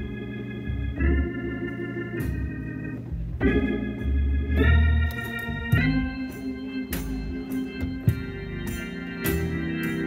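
Hammond-style organ warming up before a service, playing held chords that change every second or so over bass notes. From about six seconds in, short sharp hits join the chords.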